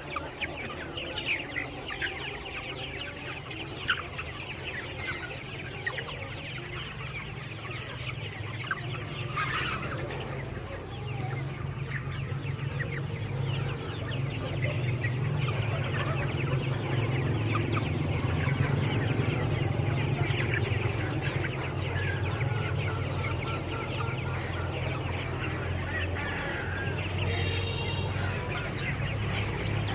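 A flock of village chickens clucking and chirping together, many short calls overlapping. A steady low hum runs under them, growing louder after about ten seconds.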